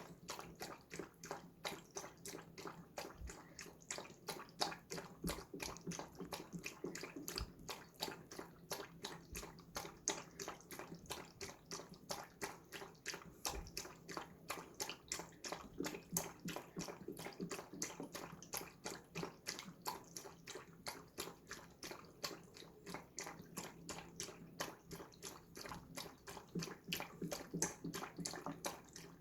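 Dog lapping water from a bowl with its tongue: a long, steady run of small wet laps, about three or four a second.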